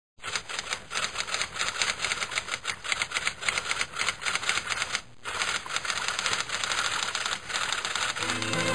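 Typewriter keys typing in a rapid run of clicks, with a short break about five seconds in. String music begins just before the end.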